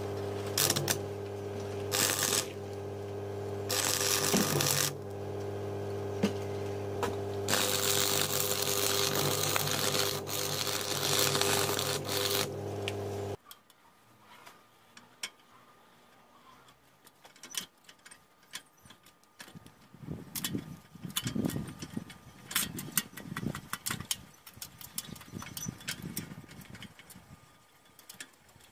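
Stick welding: an arc welder's steady electrical hum with the electrode arc crackling in several spells, the longest lasting about five seconds. About halfway through it cuts off abruptly, leaving faint clicks and handling noises.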